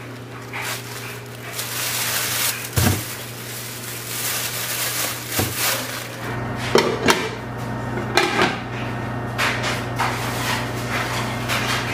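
Plastic bags rustling and crinkling as they are handled and wrapped on a stone counter, with several knocks and clatters, the two sharpest a little past halfway. A steady low hum runs underneath.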